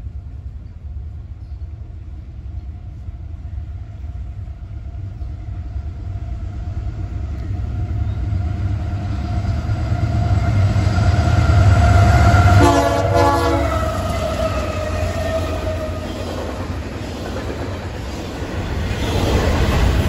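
Union Pacific GE C44ACM diesel locomotive sounding its K3-series air horn as it approaches. The horn chord grows louder, then drops slightly in pitch as the locomotive passes, over the deep rumble of the diesel engines. Near the end the double-stack container cars roll by with steady wheel-on-rail clatter.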